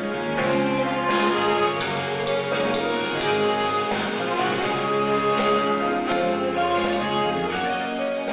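Instrumental music, several instruments playing a melody at a steady tempo.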